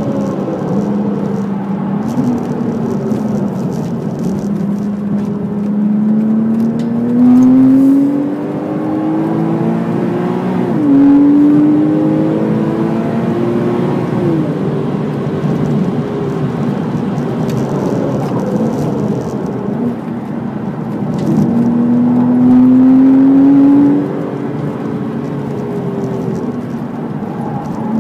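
Porsche Cayman S flat-six engine under hard throttle, heard from inside the cabin. The revs climb and fall several times with gear changes and braking, over steady tyre and road noise.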